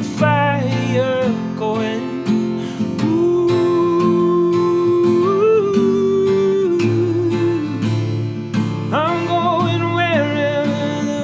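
Live acoustic song: strummed acoustic guitar under a wordless sung vocal, which holds one long note in the middle and slides between notes near the start and near the end.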